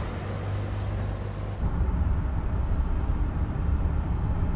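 City bus driving along a road, its noise fading as it pulls away; after about a second and a half it gives way to a steady low rumble of engine and road noise heard inside the bus cabin.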